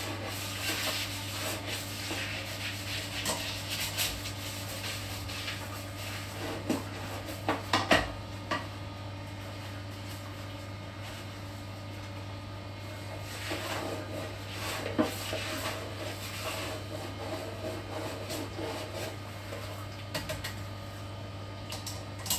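Scrubbing and rubbing inside a toilet bowl, in irregular scratchy strokes, with a few sharp knocks about seven to eight seconds in.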